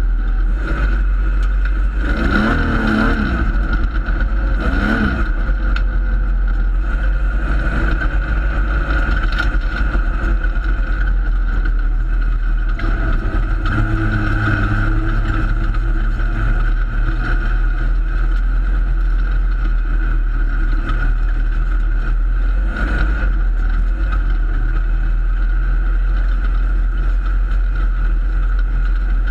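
Holden Torana open-sedan race car's engine running hard while racing on a dirt track, heard from inside the cabin with heavy low rumble on the microphone. The engine note dips and rises briefly a couple of times early on, then holds steady.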